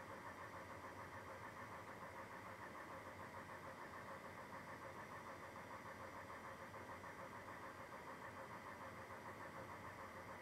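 Faint, steady mechanical hum of a running motor, with a quick, even pulse that never lets up.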